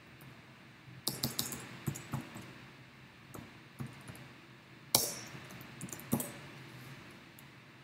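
Keystrokes on a computer keyboard as a password is typed: a quick run of key clicks about a second in, then scattered single presses, with one sharper, louder click about five seconds in.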